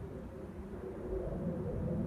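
Jet airliner flying high overhead, its engines a low rumble that grows slightly louder about a second in.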